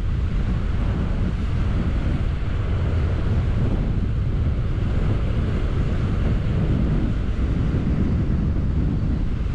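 Wind buffeting the microphone, a steady low rumble, over the wash of sea surf breaking and foaming around an offshore rock.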